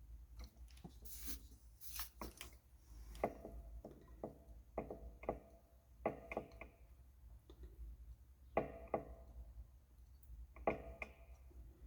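Irregular light clicks and taps of small tools and electronic parts being handled on a workbench during kit assembly, some with a brief metallic ring.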